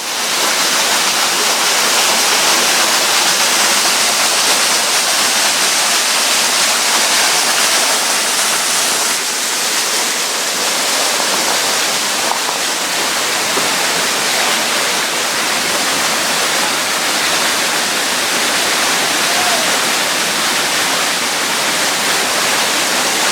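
Waterfall rushing steadily, an even, constant roar of falling water.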